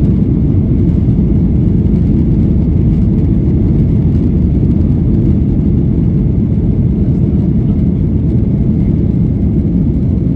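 Cabin noise inside a Boeing 737-900ER under way, heard from a seat behind the wing: the CFM56-7B engines and the airflow make a steady, loud, low-pitched rumble.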